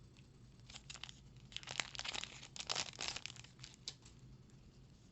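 Crinkling and tearing of a Magic: The Gathering booster pack's foil wrapper being torn open by hand, in short irregular rustles that come thickest in the middle seconds.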